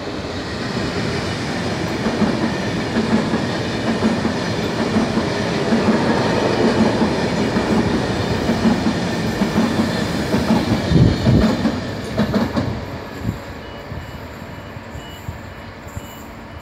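Italo high-speed electric train passing close on the near track: a steady rumble of wheels on rail that builds. Near the end of the train, about 11 seconds in, comes a short run of clickety-clack thumps as its last bogies cross the rail joints, then the sound falls away.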